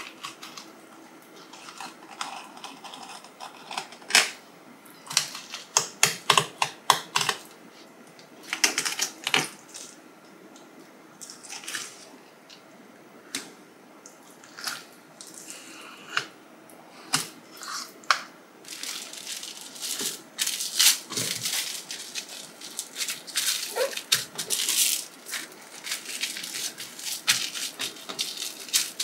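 Kitchen knife clicking and scraping as it cuts along a fish's bones on a wooden cutting board, in irregular sharp ticks. In the last third this gives way to a denser crinkling of plastic cling film as a fillet is wrapped.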